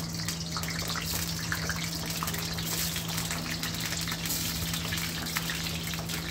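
Whole potatoes frying in hot oil in a steel kadhai: a steady sizzle with scattered crackles. A steady low hum runs underneath.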